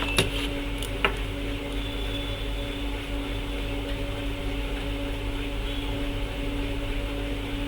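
Steady electric fan hum in a small workshop room, with a couple of light clicks in the first second.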